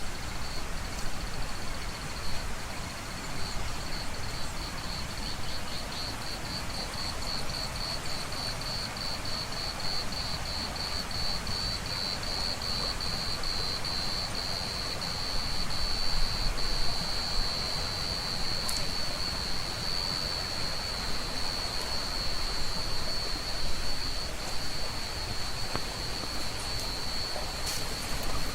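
Waterfall rushing steadily. Over it, a high-pitched insect buzz that starts as separate pulses, speeds up and merges into a continuous drone about halfway through.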